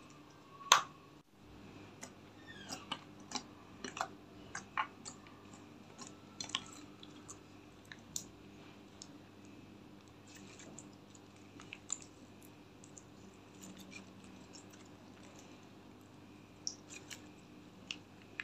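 Clear slime being stretched and squeezed by hand, giving off irregular sharp clicks and pops, the loudest about a second in.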